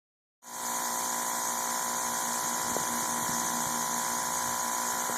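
Air conditioner condenser unit running with a steady hum and whine over a hiss: the compressor is running while the condenser fan motor is dead and not turning.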